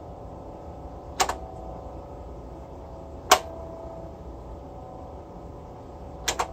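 Hitachi HT-324 belt-drive turntable motor running with a steady hum made of several held tones, a motor noise loud enough to be heard over the room and which sounds terrible. Three sharp clicks fall over it, about a second in, about three seconds in, and a double click near the end.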